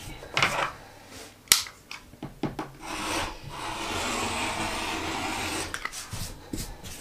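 Fabric being handled and smoothed, with a few sharp clicks, then a rotary cutter rolling through layered fabric on a cutting mat for about three seconds, a steady hiss.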